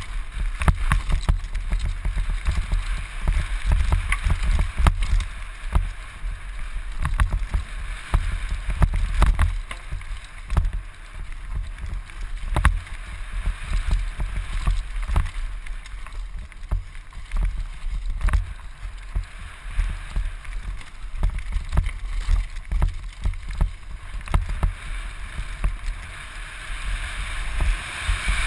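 Downhill mountain bike descending a dry dirt and leaf-litter trail at speed: tyre noise and frequent sharp knocks and rattles from the bike over rocks and roots, with wind buffeting a helmet-mounted microphone as a constant low rumble.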